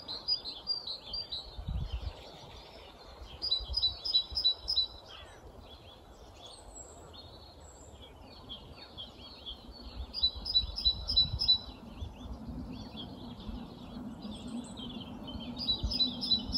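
Songbirds singing: short phrases of fast repeated high notes every few seconds, strongest about four seconds in, again around ten seconds and near the end, over a low rumble of wind.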